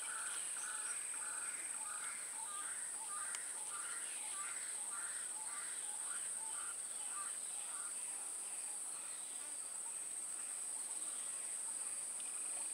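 Insects droning with a steady, high-pitched hum, over a repeated animal call of about two notes a second that fades out about eight seconds in.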